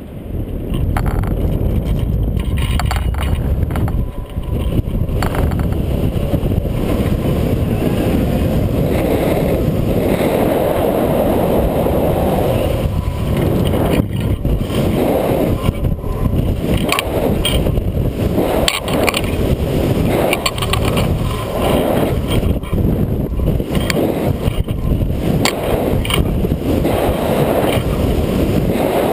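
Loud wind rushing and buffeting over the microphone of a camera mounted on a spinning thrill ride, coming in suddenly as the ride gathers speed and swelling in gusts as the arm swings.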